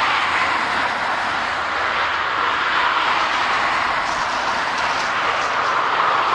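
Jet aircraft engines running, a loud, steady rushing noise.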